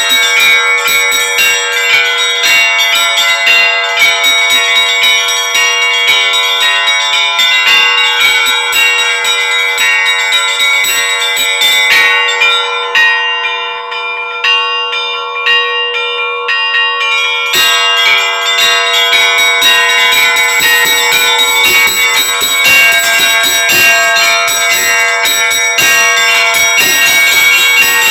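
Russian Orthodox church bells rung in a festive peal: rapid strikes on the small bells over the ringing of the larger bells. A little under halfway through, the rapid high strikes stop for about four seconds, leaving the deeper bells sounding, then start again.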